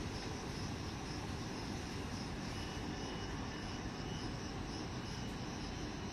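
Crickets chirping in a steady, even rhythm over a constant low rumble of background noise.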